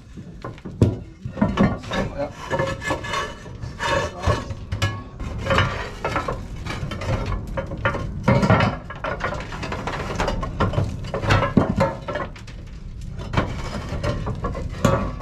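Clay roof tiles being worked loose and lifted out by hand: irregular scraping and clattering of tile on tile, with knocks against the wooden battens.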